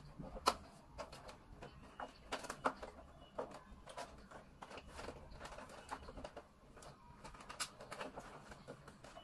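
Irregular light clicks and knocks of hand work on an air conditioner indoor unit's plastic and metal parts, several to the second, over a faint low hum.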